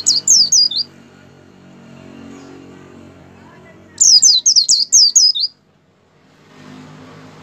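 Caged white-eye (pleci) singing two loud bursts of rapid, high, falling chirpy notes. The first ends within the first second, and the second begins about four seconds in and lasts about a second and a half. A faint low hum sits underneath.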